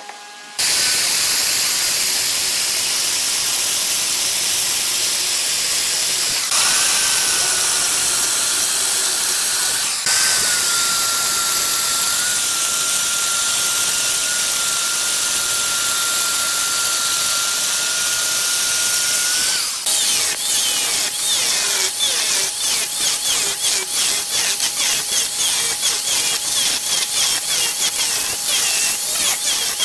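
Handheld power tools cutting and grinding hardwood. A bar-type power cutter notching the base runs with a steady high whine. From about twenty seconds in, an angle grinder with a disc shapes the rim in quick rhythmic strokes.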